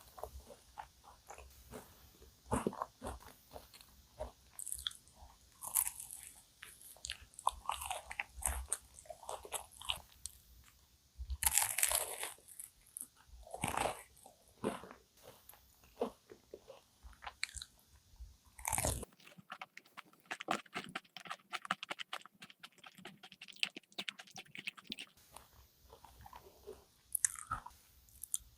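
Close-miked biting and chewing of a cookie choux, a cream puff with a crisp cookie crust: irregular crunches throughout, with a few loud crunching bites around the middle, followed by several seconds of fine, rapid crackling.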